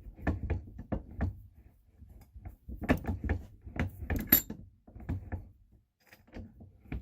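Metal bench vise being wound shut on the saw blade: irregular clunks and clicks of the handle and jaws, with a sharp metallic clink about four seconds in.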